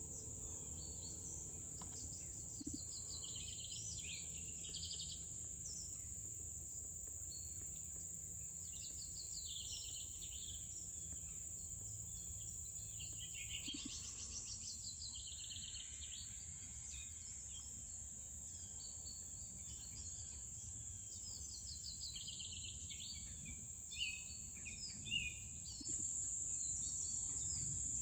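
Insects singing in a steady, high-pitched drone, with pulsed chirping calls coming and going over it. A couple of soft knocks near the end.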